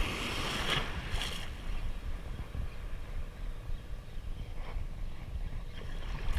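Wind rumbling on the microphone over small surf washing through the shallows, with a wave hissing in about a second in and another near the end.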